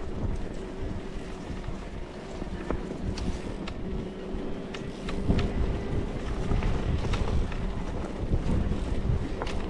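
Wind buffeting the microphone of a camera riding on an electric-assist mountain bike, with a steady thin whine throughout and scattered sharp clicks and rattles from the bike on the rough trail.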